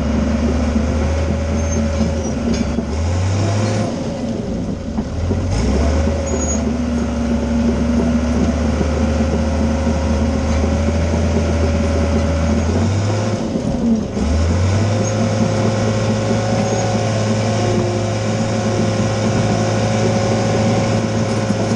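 Diesel engine of an old Allis-Chalmers Fiat crawler dozer running as the machine pushes into brush. Its engine note steps up and drops back several times, then holds at the higher speed for the last several seconds.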